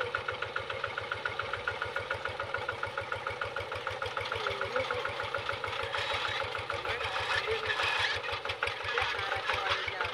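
A two-wheel hand tractor's single-cylinder diesel engine running with a steady, rapid, even beat.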